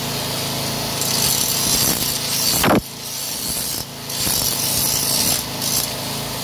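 Electric angle grinder running with its disc grinding against the steel blades of a reel mower, sharpening their cutting edges. The grinding hiss comes and goes over a steady motor hum as the disc touches and leaves the blade, with a brief falling screech about halfway.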